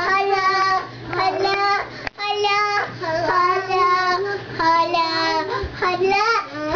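A young child singing in long held notes that bend up and down in pitch, with a short break about two seconds in.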